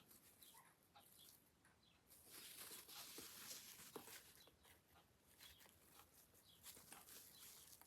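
Near silence, with faint, scattered short animal calls in the background.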